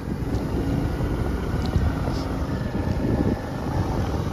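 Wind buffeting the microphone over the steady rumble of a vehicle travelling along a rough, unpaved track.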